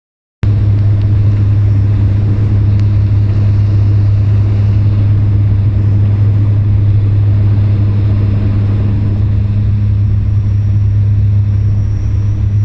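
Cabin noise of a Bombardier Dash 8 Q400 turboprop on approach: the engines and six-blade propellers make a loud, steady low drone that starts abruptly about half a second in. A faint high whine rises slightly near the end.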